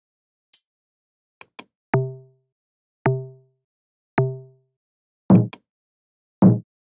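Sampled log drum hit three times, about a second apart, each a pitched, booming note that dies away. Three sampled bongo hits follow at the same pace, with a few faint high ticks around them.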